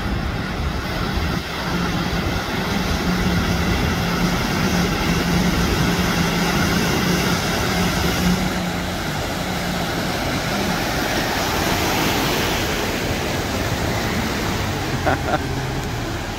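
Vehicles driving through deep, fast-flowing floodwater: a steady wash of rushing, splashing water over a low engine hum, which drops lower about ten seconds in.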